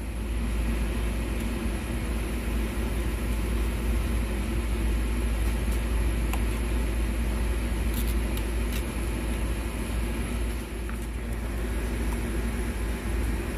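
Steady low rumble with a hiss of background noise, with a few faint clicks about eight seconds in.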